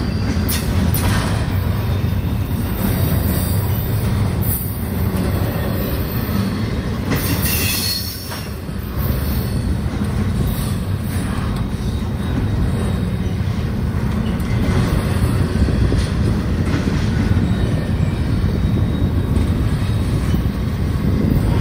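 Union Pacific double-stack intermodal freight train rolling past: the steady rumble and clatter of the container well cars' wheels on the rails.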